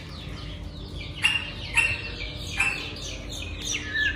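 Chick peeping: three loud, high, level-pitched peeps from about a second in, then another lower peep near the end.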